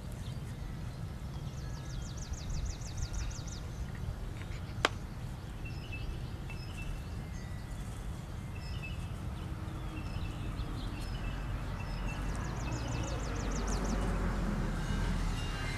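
Wild songbirds singing outdoors: a rapid high trill about two seconds in and another near the end, with scattered short chirps between, over a steady low rumble. A single sharp click sounds about five seconds in.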